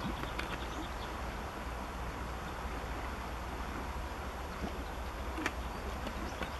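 Steady outdoor background noise, an even hiss over a low rumble, with a few faint short clicks.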